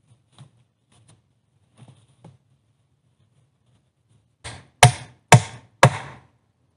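Axe chopping: three hard blows about half a second apart, each trailing off briefly, after a few faint taps and scrapes in the first couple of seconds.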